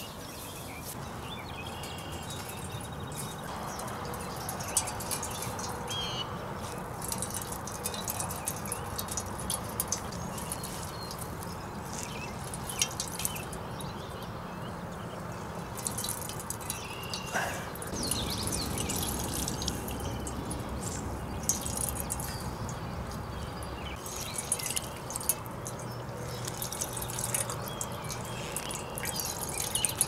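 Water wrung from a dew-soaked cloth rag dripping and trickling into a small stainless-steel pot, with many small splashes and drips.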